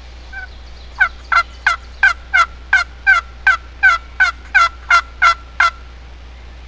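Hand-operated turkey call sounding a run of about fourteen hen yelps, about three a second, each note dropping sharply in pitch, calling to a gobbler.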